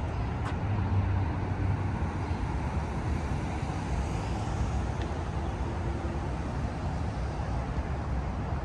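City street ambience: a steady wash of road traffic noise from passing cars, with a low rumble.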